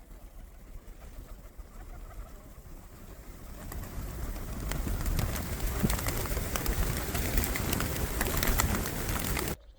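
Gusty wind buffeting the microphone in a snowstorm, building to a loud gust about halfway through, with many small clicks, then cut off abruptly near the end.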